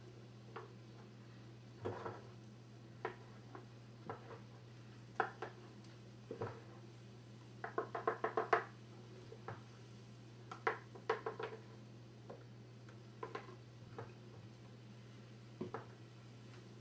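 A spoon clinking and tapping against a metal muffin tin and mixing bowl as batter is spooned into the cups, in scattered knocks with a quick run of taps about eight seconds in. A steady low hum sounds underneath.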